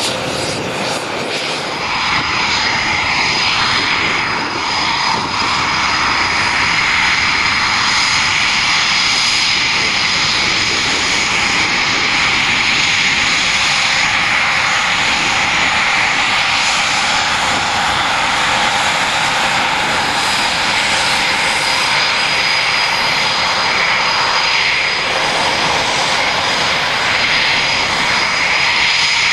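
Eurofighter Typhoon's twin EJ200 jet engines running as the fighter taxis: a steady high-pitched whine over a continuous rushing noise.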